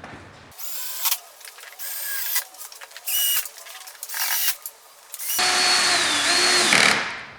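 A drill with a Phillips bit driving stainless steel screws into a golf cart's body panel: several short bursts of whirring, then a longer, louder run near the end.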